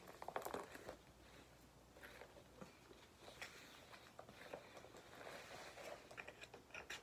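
Faint rustling and small clicks of a canvas belt bag and its strap being handled and slung across the body. The clicks cluster in the first second and again near the end.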